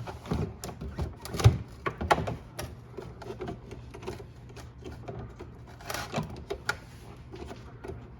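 Scattered clicks, knocks and rubbing as hands handle and work loose refrigerator ice-dispenser parts, with a few sharper knocks about a second and a half, two seconds and six seconds in, over a faint steady hum.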